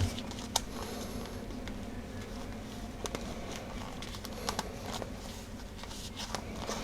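Hands pressing the edge of a replacement leather ear pad into the gaps around a Denon AH-D7100 headphone's ear cup: scattered small clicks and rustles of handling, over a steady low hum.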